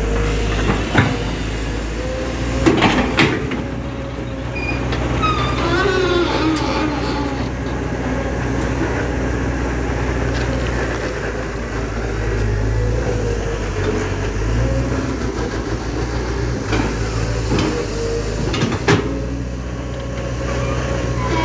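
Excavator's diesel engine running steadily under load while its hydraulics work the boom and bucket, with the bucket scraping and knocking in the soil a few times.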